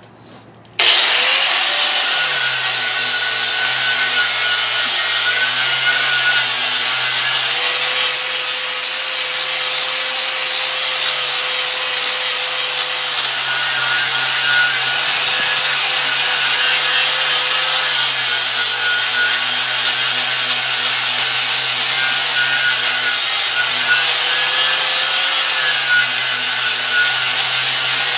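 Angle grinder with a flap disc starting up about a second in and grinding Raptor bed liner coating off a metal bumper. It runs steadily, its note dropping and recovering several times as it is pressed into the work.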